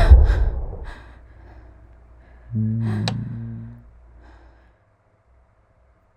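A loud sudden horror-film scare hit dying away over the first second. About two and a half seconds in comes a low, steady-pitched sound lasting just over a second, then silence.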